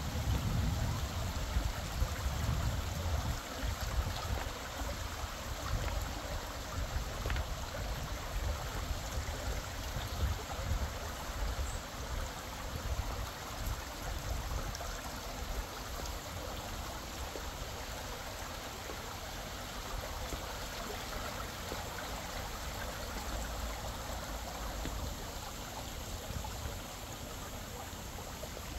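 Steady rush of running water, like a garden stream, with a low rumble underneath that eases off near the end.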